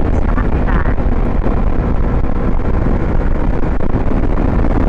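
Steady wind rush over the microphone of a moving Yamaha MT-25 motorcycle, with the bike's engine and road noise underneath.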